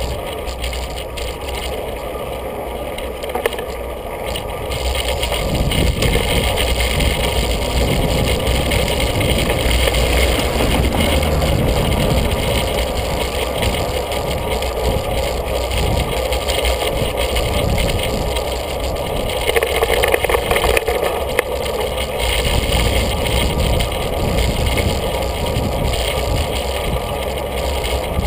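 Bicycle riding along a city street, heard through a handlebar-mounted camera: steady wind rush on the microphone with tyre and road rumble and small rattles. The rumble grows louder about five seconds in.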